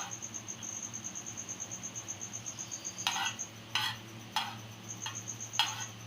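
A utensil scraping around a frying pan about five times in the second half, stirring sugar melted brown in desi ghee so that it does not burn. Under it a cricket chirps steadily and high-pitched at about seven or eight pulses a second.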